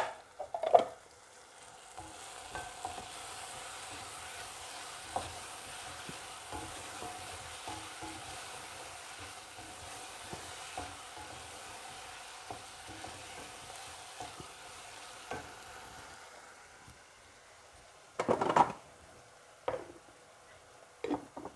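Chicken pieces frying and sizzling in a nonstick pan as they are stirred, with light scrapes and taps of the spatula. Near the end the sizzle fades and there are a few loud clanks of metal cookware.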